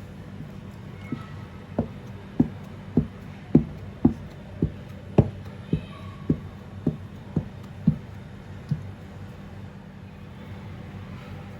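A run of sharp knocks, about two a second, stopping about nine seconds in, over a steady low hum.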